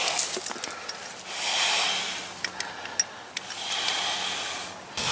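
Heavy breathing of a man straining at a chain wire strainer: two long breaths, with a few light clicks of the strainer's chain between them.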